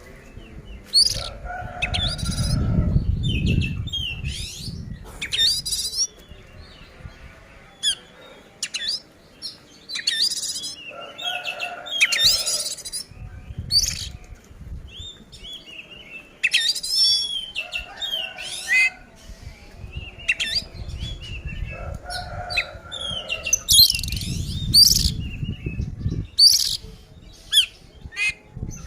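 Oriental magpie-robin (kacer) singing a loud, full fighting song of rapid, varied whistles and chirps. Bursts of low rustling noise come and go beneath it, loudest about two to four seconds in.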